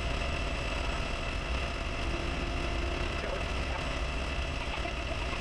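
Clausing metal lathe running steadily, a continuous low hum with a few steady whining tones over it.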